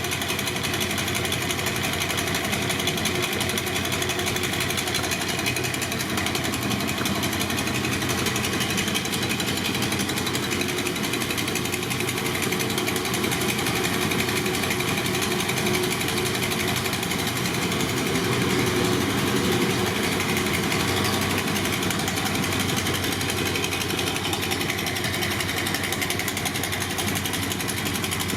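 BMW R60/7's air-cooled flat-twin boxer engine running steadily at idle with a mechanical clatter, swelling briefly about two-thirds of the way in.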